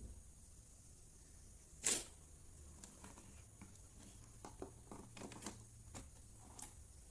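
Faint clicks and taps of small laptop parts and tools being handled, with one short, louder rustling noise about two seconds in.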